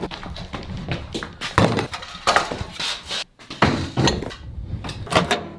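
A plastic food container being carried and handled, then set on a workbench: a run of irregular knocks, clicks and light clatter.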